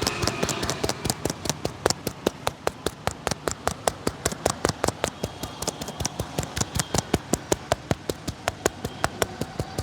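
A barber's hands rapidly patting and slapping on a customer's head during an Indian head massage, a steady rhythm of sharp pats, several a second.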